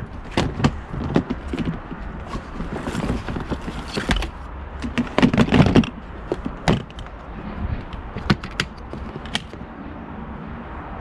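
Irregular knocks, clicks and thuds of things being handled, with the loudest cluster about five to six seconds in.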